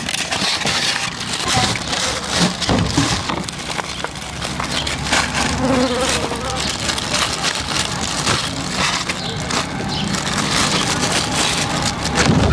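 Steady insect buzzing, with the rustle and crinkle of plastic gloves and foam takeaway boxes being handled.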